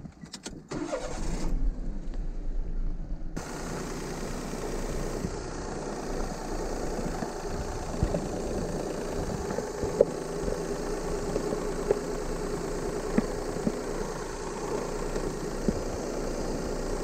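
Daihatsu Move L150S three-cylinder engine starting after a few clicks, running unevenly for about two seconds, then settling into a steady idle.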